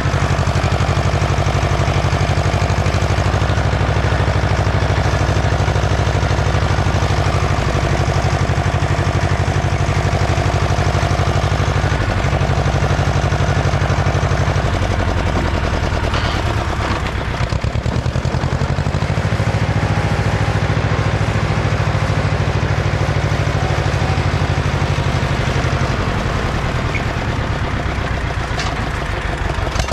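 Ursus C-335 tractor's diesel engine running steadily and loud, hauling a disc harrow. Its pitch sags about halfway through, then picks up again.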